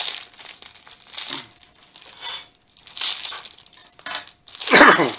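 A Lego minifigure packet being crinkled and torn open by hand in short bursts of rustling. Near the end comes a loud cough.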